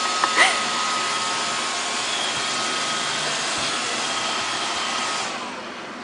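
Roomba robot vacuum running with a baby riding on it: a steady whirring hiss with a thin high whine, fading out about five seconds in. A couple of short high squeaks near the start.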